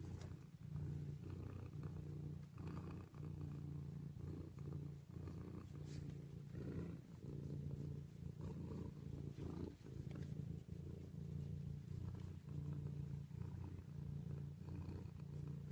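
Mother tabby cat purring steadily while being stroked. The purr swells and fades about once a second with her breathing, with a few faint rustles.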